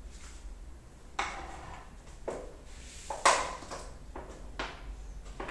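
Plastic containers handled on a tiled floor: a tub and a plastic bottle of paint set down and knocked about in several sharp knocks and clicks, the loudest just past the middle, as a tight bottle cap is worked at.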